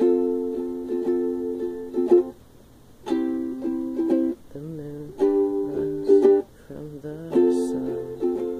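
Ukulele strummed in chords, played as an instrumental passage: several short runs of strumming broken by brief pauses.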